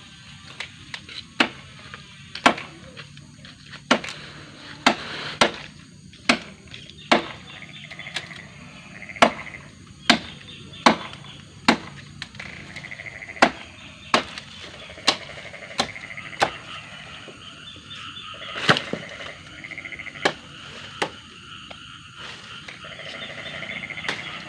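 Chopping into the wood of a fallen tree's branches with a blade: sharp, separate strikes about once a second, unevenly spaced, one of the loudest about three quarters of the way through.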